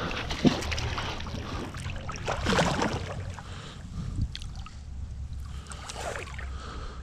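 Wet rope being hauled in hand over hand out of a river, with water splashing and dripping off it. A sharp knock comes about half a second in and the loudest splashing a couple of seconds later.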